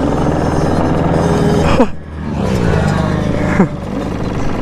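Dirt bike engine revving hard under acceleration, its pitch dropping sharply at gear shifts twice, about two seconds apart.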